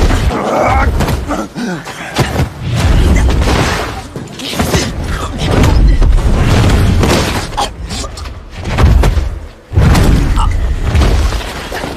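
Film fight sound effects: heavy booming punch and body impacts with thuds, coming in surges about every two seconds.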